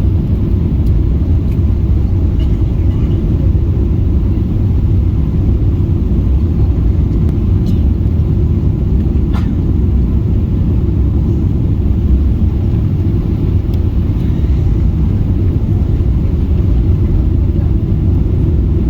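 Steady low rumble inside the cabin of a Boeing 777-300ER airliner, holding an even level, with a faint click about nine seconds in.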